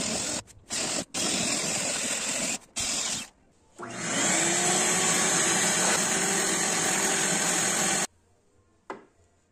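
Electric drill with a Forstner bit boring into a hardwood block in three short bursts, then running steadily for about four seconds with a rising whine before cutting off suddenly. A single click follows near the end.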